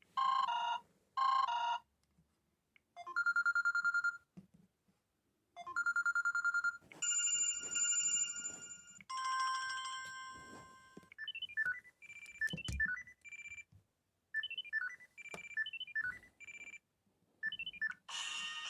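Samsung Galaxy S2 stock ringtones (Android 4.0.3) played through the phone's loudspeaker, one short sample after another with brief gaps between them. First come trilling electronic rings, then sustained chiming tones, then short beeping melodies.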